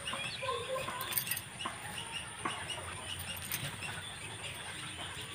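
Faint footsteps on wet soil with light scattered clicks and rustling, over quiet background bird calls.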